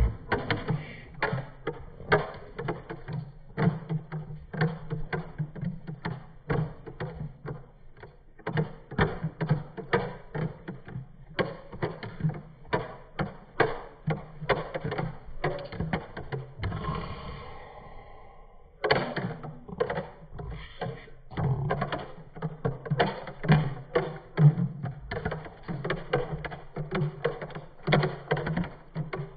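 A metal spoon stirring a smoothie in a plastic blender cup, knocking and clinking against the cup wall in quick repeated taps, about two to three a second, with a short pause around two-thirds of the way through.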